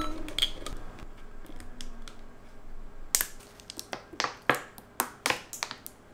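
Thin plastic water bottle crackling and crinkling as it is squeezed to push water into a long rubber balloon. The sound comes as sharp, irregular clicks, sparse at first, then several a second from about three seconds in.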